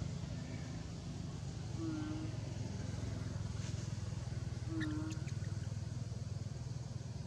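A motor vehicle's engine running steadily with a low hum, with two short low calls about two and five seconds in.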